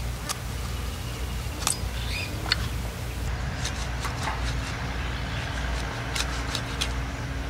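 Sharp, scattered clicks of a mrigal carp being scaled and cut on a boti blade, scales snapping off against the metal, over a steady low rumble.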